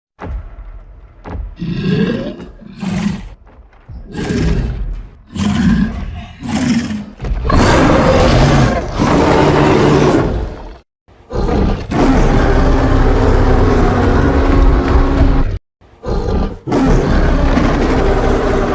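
A series of roars: short growling calls for the first several seconds, then three long, loud, rough roars separated by brief breaks.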